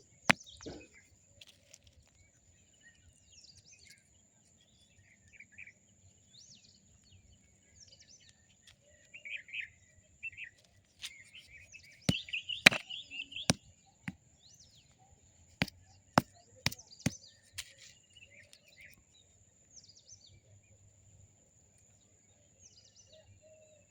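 A stone knocking against a dried harad (haritaki) fruit to crack it open for its seed: one sharp knock just after the start, then a run of about seven between about 12 and 17 seconds in. Birds chirp now and then, over a faint steady high tone.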